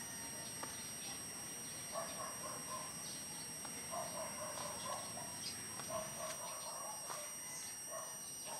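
Bird calls: runs of short repeated notes, starting about two seconds in and recurring through the rest, over a faint steady background with a few light clicks.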